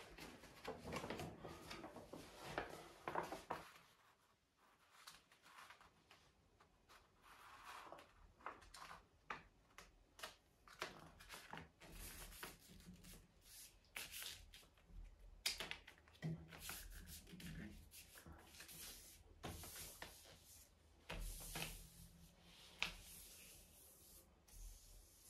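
Faint rustling and crinkling of a large folded paper poster as it is held up and smoothed flat against a wall by hand, with scattered light rubs and taps.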